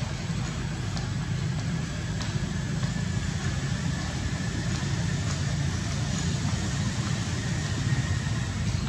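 Steady low rumble with no breaks or changes, with a faint thin high tone in the middle part.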